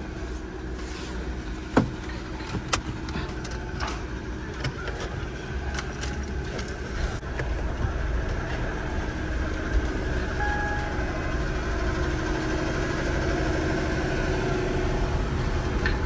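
Car engine running steadily, getting slightly louder over the second half, with several sharp clicks and knocks in the first half.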